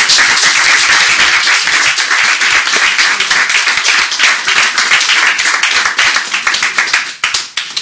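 Audience applauding: dense clapping that thins to a few scattered claps near the end.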